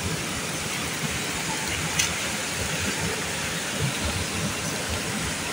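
Waterfall: a steady roar of falling, rushing water, with one sharp click about two seconds in.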